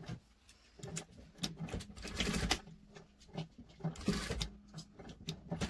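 Industrial lockstitch sewing machine stitching ribbed knit fabric in short start-and-stop runs, a low hum with rapid needle clicks. It starts about a second in.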